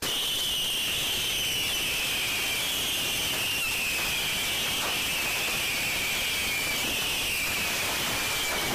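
A roomful of consumer fireworks going off at once, starting suddenly: a loud, steady hiss with a shrill whistle that slowly drops in pitch, and a few pops.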